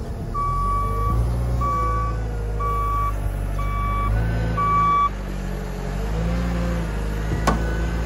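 JCB 409 wheel loader's diesel engine running as it manoeuvres, with its reversing alarm beeping five times, about once a second, then stopping. A single sharp knock near the end.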